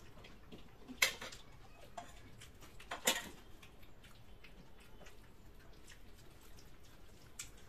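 Quiet sounds of eating by hand: fingers mixing and scooping rice and dal on steel plates, with scattered light ticks and two sharper clicks, about one and three seconds in.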